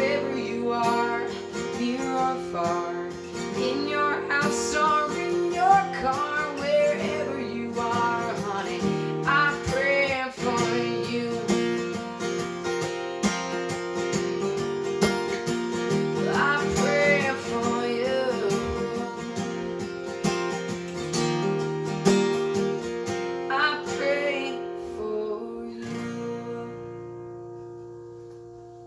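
Music: an acoustic guitar strumming the song's closing chords. About 26 seconds in, the last chord rings out and slowly fades away.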